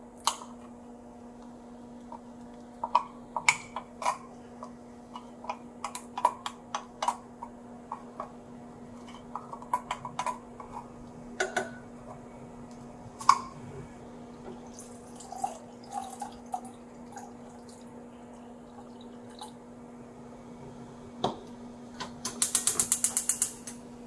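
Wooden spatula scraping and tapping against a metal can as thick canned sweet adzuki beans are scraped out into a saucepan, a scatter of irregular taps and scrapes. Near the end comes a quick run of clicks, about a second long, from a gas stove's igniter lighting the burner. A steady low hum runs underneath.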